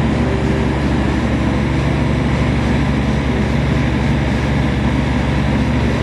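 XCMG mini excavator's engine running steadily as the machine moves and turns, a constant low hum with a fast even pulse.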